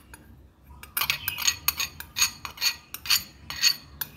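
A quick run of glass-and-metal clinks, about four a second, starting about a second in: the last of the dissolved baking powder being tapped and scraped out of a small glass bowl into a stainless steel mixing bowl.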